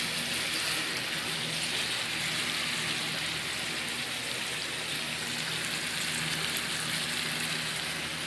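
Summer squash and shrimp sizzling steadily in a frying pan.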